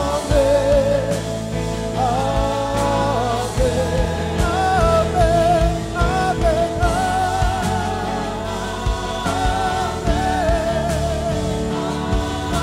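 Live worship band playing a song: a man singing lead over electric guitar, keyboard and bass.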